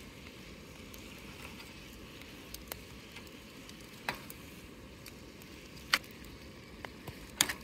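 Whole squid sizzling in a small metal pan over a wood fire while being cut into rings, with several sharp clicks of metal tongs and a knife against the pan, the loudest about six seconds in and again near the end.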